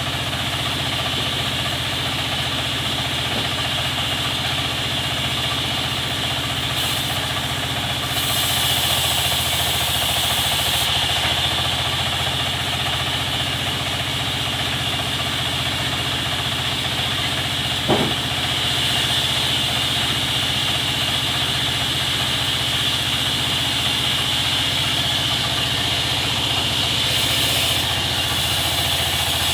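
Sawmill machinery running steadily: a constant engine-like hum under a steady high whine. Hiss rises briefly twice, and there is a single sharp knock about two-thirds of the way through.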